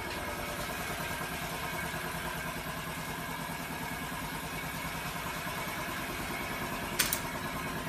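A machine running steadily, with a fast even low pulse and a steady hum. A single sharp click comes about seven seconds in.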